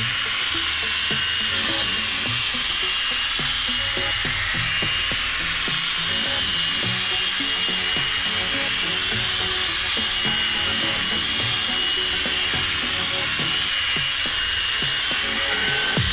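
Power drill steadily spinning a 1500-grit sanding disc against a plastic headlight lens, a constant motor whine with scrubbing.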